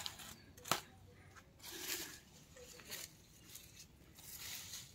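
A single sharp snap as a bitter gourd is broken off its vine by hand, then faint rustling of the vine leaves.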